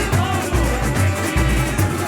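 Samba-enredo played by a samba school's drum section, with deep surdo bass drums pulsing steadily under dense percussion and a sung melody line.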